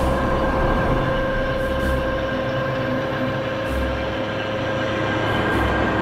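Slurry tanker's tractor-PTO-driven pump running steadily: a constant whine over the low rumble of the tractor engine.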